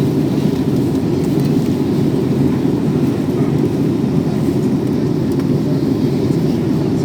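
Steady low rumble of airliner cabin noise inside an Airbus A320neo in flight, engine and airflow noise holding even throughout.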